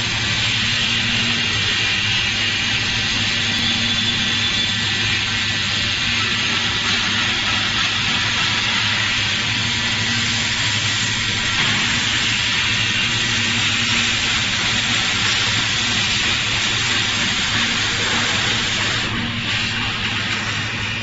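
Portable laser welding machine with automatic wire feed running: a steady hiss over a low hum, with a fainter higher hum that comes and goes.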